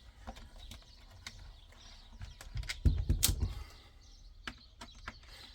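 Scattered light clicks and taps of a tool on a steering wheel's trim and screws, with one louder clack about three seconds in.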